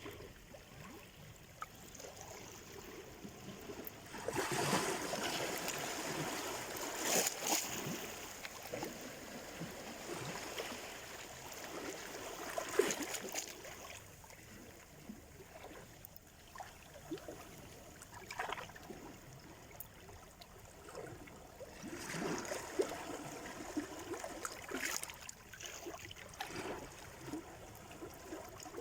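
Small sea waves breaking and washing up the shore. Two larger surges come about four and twenty-two seconds in, with lighter washing and fizzing between them.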